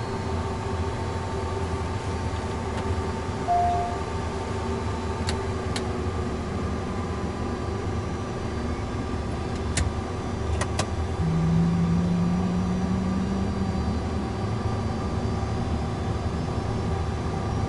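Cessna Citation turbofan jet engines heard from the cockpit during engine start: a steady hum and whine with a short beep and a few sharp clicks. About eleven seconds in, a rising tone sets in and the engine sound grows a little louder as the next engine spools up to a good start.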